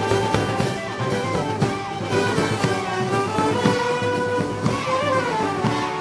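Brass band with drums playing a festive street march (pasacalle): sustained brass melody over a steady drum beat.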